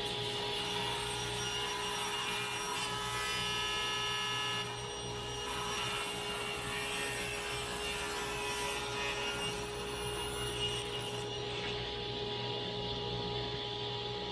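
Table saw running, its blade cutting along a glued-up wooden table leg from about three seconds in until about eleven seconds in, the motor humming steadily throughout.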